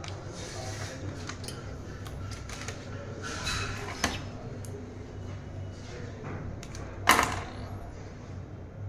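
Electric copper wire stripping machine running with a steady low hum while wire is fed through it, with scattered light clicks and two sharp knocks, the louder one about seven seconds in.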